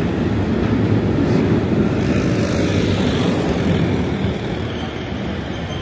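Loud low rumble of street traffic, swelling about two seconds in and slowly easing off, as a heavy vehicle passes.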